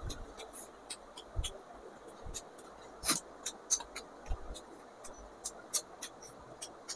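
Close-up eating sounds of a person chewing fried rice: irregular sharp wet mouth clicks and lip smacks, a few a second, with a few soft low thumps.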